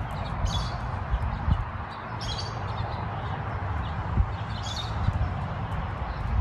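Backyard ambience: a steady low rumble and hiss, with three short high chirps, about half a second, two seconds and nearly five seconds in.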